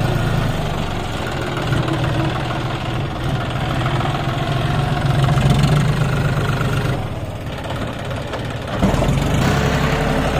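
John Deere tractor's three-cylinder diesel engine running steadily with a fully loaded trolley hitched. It goes a little quieter for a second or two near the end, then comes back suddenly.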